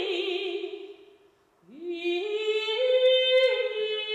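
A soprano singing without accompaniment, with vibrato. A phrase ends about a second in; after a short pause a new phrase slides up from low, climbs in steps to a held high note, and drops a step near the end.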